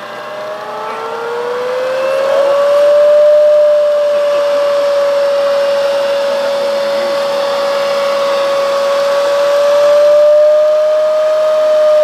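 Brushless axial-flux electric aircraft motor spinning a propeller on a test stand, run up from slow: a whine rises in pitch and loudness over the first few seconds, then holds steady at high speed, swelling slightly near the end.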